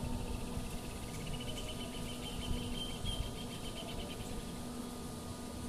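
A high, rapidly pulsing trill from a small animal, lasting about four seconds and stopping near the end, over a steady low hum and a low rumble.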